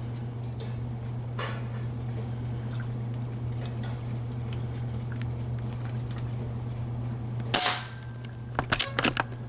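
A single sharp shot from a Benjamin Marauder .22 pre-charged pneumatic air rifle near the end, over a steady low hum. It is followed about a second later by a quick flurry of sharp clicks and splashes as the hit rat thrashes in water.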